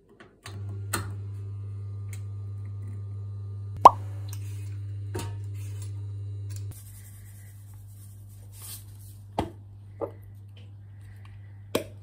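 Electric oven switched on with a turn of its control knob, its fan motor starting a steady low hum. A loud, sharp plop comes about four seconds in, and several lighter clicks and knocks follow. The hum drops to a fainter level about two-thirds of the way through.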